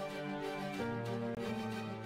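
Background music: sustained chords that change about a second in, with no natural sound standing out.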